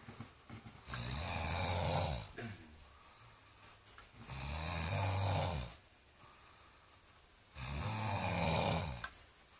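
A man snoring in deep sleep: three long, low snores, each about a second and a half, coming regularly about every three and a half seconds.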